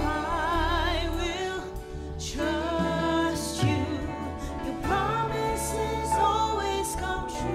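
A live worship band playing a contemporary Christian song, with a singer's voice wavering in vibrato over held keyboard chords, acoustic guitar and a sustained bass.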